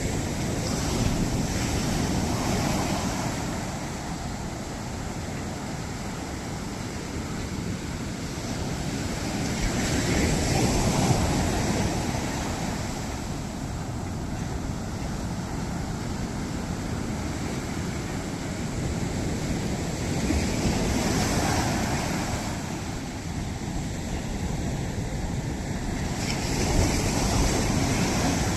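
Sea waves breaking and washing ashore, the surf swelling up in long surges roughly every ten seconds over a constant rush of water, with some wind on the microphone.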